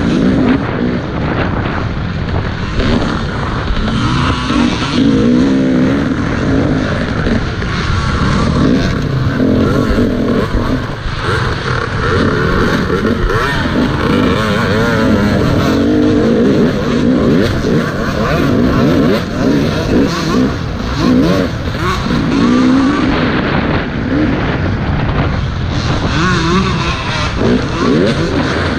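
Dirt bike engine revving up and down without a break, its pitch rising and falling with the throttle.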